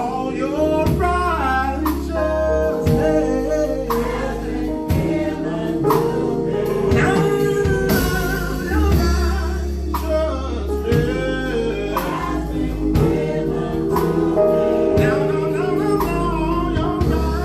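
Gospel music: sung vocals with ad-lib runs over a band, with bass and a steady drum beat.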